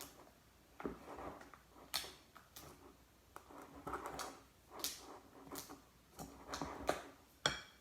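Slime mixture of glue, shaving cream and saline activator being stirred in a bowl: irregular soft wet swishes with sharp clicks, roughly one every half second to a second.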